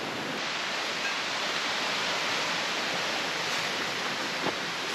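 A steady, even hiss with no pitch, and a faint click about four and a half seconds in.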